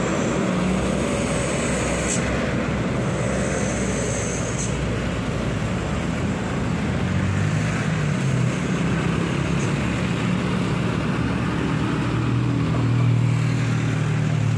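Slow road traffic of heavy trucks, a motorcycle and cars climbing a hill road, with diesel engines running steadily. One engine grows louder near the end as a vehicle passes close.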